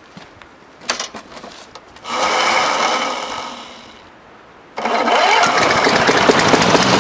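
A Lawn-Boy push mower's small gasoline engine, primed and cranked on its electric start. A few clicks come first. About two seconds in it cranks and fires, then fades away. Near five seconds in it starts suddenly and keeps running steadily.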